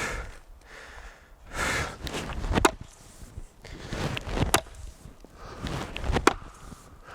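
Chopping axe striking a wood log three times, about two seconds apart, each a sharp chop, with hard breaths from the chopper between swings.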